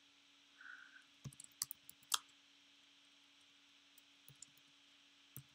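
Faint keystrokes on a computer keyboard: a quick run of about five key clicks a little over a second in, then a few single clicks near the end, over a faint steady hum.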